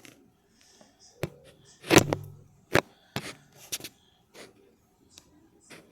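A string of sharp clicks and knocks at irregular spacing, the loudest about two seconds in, followed by a short low hum.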